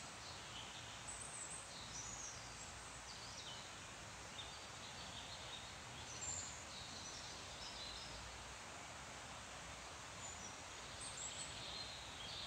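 Small birds chirping in short, high, scattered phrases over a steady, faint hiss.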